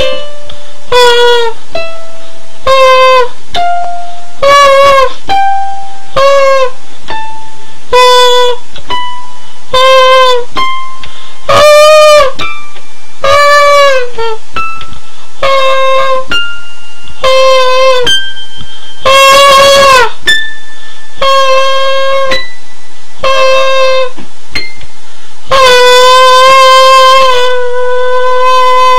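A loud, nasal, horn-like high singing voice belting short notes about once a second, each bending in pitch. It ends on one long held note over the last few seconds. Softer notes at other pitches sound between the belted ones.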